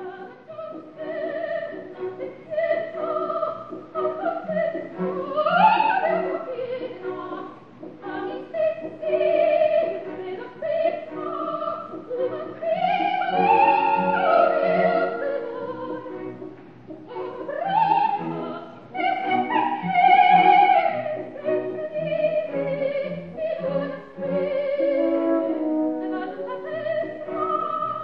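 Operatic soprano singing sustained, wavering notes with vibrato over orchestral accompaniment, climbing to high held notes a few times.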